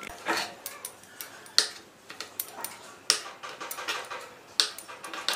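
Knife cutting paneer cubes in half on a wooden chopping board: sharp knocks of the blade on the board about every one and a half seconds, with lighter ticks in between.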